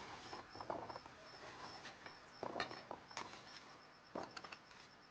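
Faint scattered clicks and knocks of handling, over a thin high chirp repeating evenly about three or four times a second.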